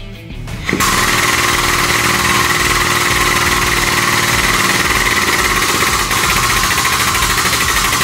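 Hydraulic foot pump running under the pedal, a loud steady hiss with a rapid chatter that starts about a second in. It is building pressure to about 3000 PSI to expand a Snap-it Junior tube plug.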